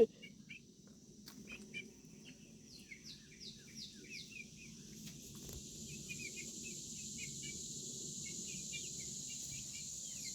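Outdoor farmyard ambience: a steady high insect drone that grows louder about halfway through, with repeated short falling bird chirps over it.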